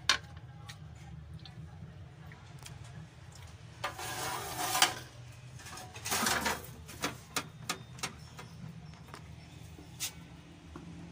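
A spoon scraping through and clinking against a pot of bean and chickpea chaat: a sharp click at the start, two longer scrapes in the middle and a few light clicks after. A steady low hum runs underneath.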